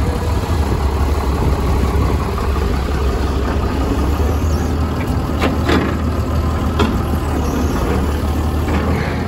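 Farm tractor's diesel engine idling steadily, with a few sharp knocks near the middle.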